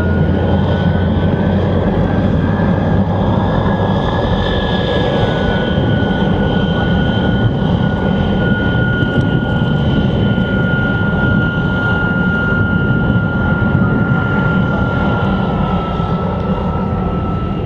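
MiG-15 UTI's centrifugal-flow turbojet running on the ground at idle: a steady rushing noise with a high whine over it, the whine dipping slightly in pitch about five seconds in.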